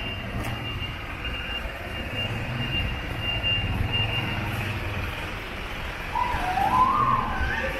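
Street traffic: vehicle engines running with a steady low rumble. A thin high tone holds through the first half, and a short wavering pitched sound rises near the end.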